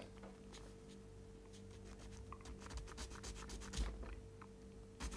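Faint, short scratching strokes of a small hand file on a plastic RC car suspension part, shaving it down where it binds; the strokes come mostly in the second half.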